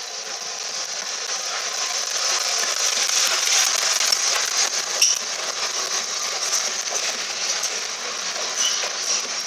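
Merchant Navy class 4-6-2 steam locomotive 35028 Clan Line and its Pullman coaches rolling slowly into a terminus platform: a steady hissing rush that builds as the engine draws level, with scattered sharp clicks.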